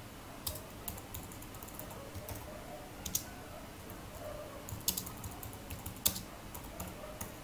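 Typing on a computer keyboard: faint, irregular keystrokes with a handful of sharper clicks spread through.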